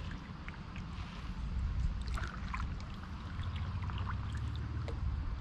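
Kayak paddle working the water: light splashes and trickling drips, scattered through the clip, over a low steady rumble.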